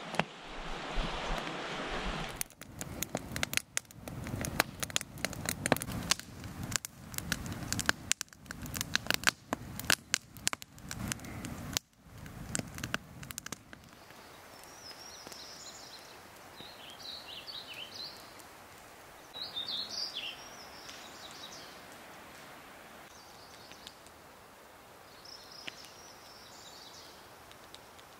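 Campfire crackling, with dense sharp pops and snaps of burning wood. About halfway through it gives way to quieter outdoor ambience in which birds chirp in a few short calls.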